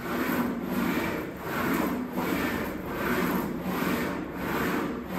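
English wheel rolling a large sheet-metal panel back and forth: a rubbing, rasping sound that swells and fades with each pass, about one pass a second. The wheel is stretching the sheet so that it rises into a crown.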